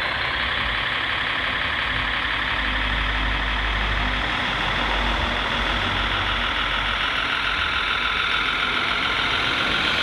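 Radio-controlled MAN tipper truck driving slowly with a steady truck-engine sound. A low rumble grows stronger from about two seconds in and eases again after about six seconds.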